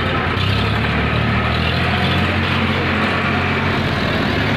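A vehicle engine running steadily with a low hum, under an even wash of outdoor traffic noise.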